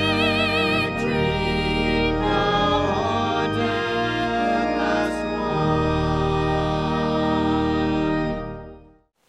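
Choir singing with accompaniment, ending on a long held final chord that fades out shortly before the end.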